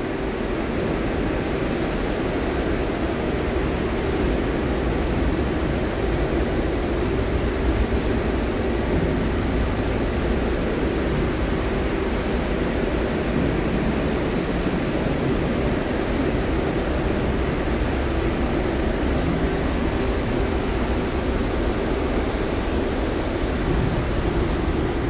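Steady low rumble of ship's machinery with a constant hum, carrying through the empty steel cargo hold, with faint footsteps on the steel stairs.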